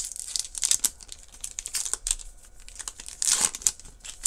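Wrapper of a Topps Chrome trading-card pack crinkling and tearing as it is ripped open by hand, in a run of short crackles, the loudest and longest one about three seconds in.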